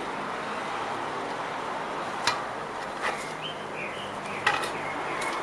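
Metal clicks and knocks as a paddock stand is gently lowered away from a scooter's rear, with a few short high chirps in the middle, over a steady background hiss.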